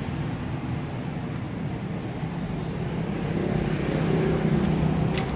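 Steady low mechanical hum with a vehicle-like drone, swelling a little around the fourth second, and a single short click near the end.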